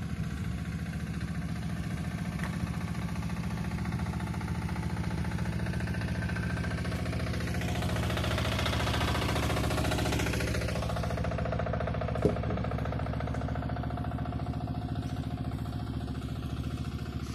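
Trailer-mounted, engine-driven flood pump running steadily while it pumps floodwater. The engine grows louder about halfway through as the pump is passed close by, and there is a single sharp knock about two-thirds of the way in.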